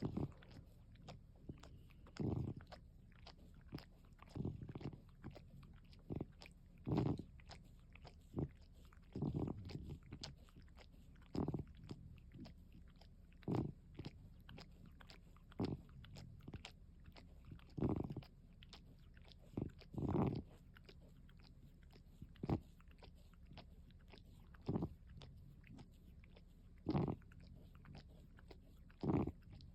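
A cat grooming itself close to the microphone: short, irregular licking and nibbling sounds, one every second or two.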